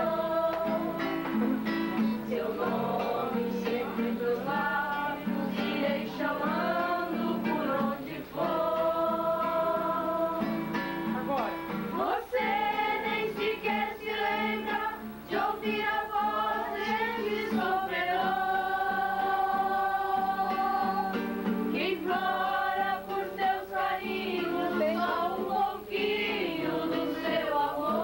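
Several voices singing a slow song together in Portuguese, accompanied by an acoustic guitar, with long held notes.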